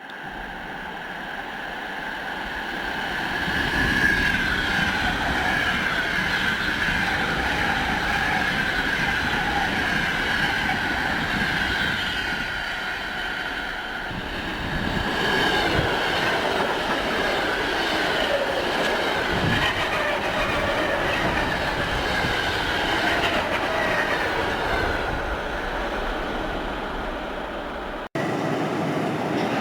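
A train running on the rails, with a steady rumble and wavering wheel squeal over it. The sound breaks off abruptly near the end and resumes with a different mix.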